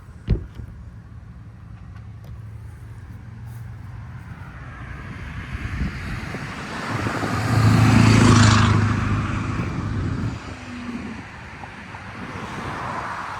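A single sharp click, then a road vehicle passing by: its engine and tyre noise builds, peaks a little past the middle, and fades away.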